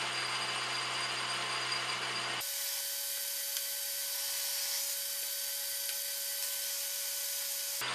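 Logan lathe running while a drill in the tailstock chuck is fed into a spinning cast iron blank, a steady mechanical whir. About two and a half seconds in the low hum drops out suddenly, leaving a steady whine and hiss until just before the end.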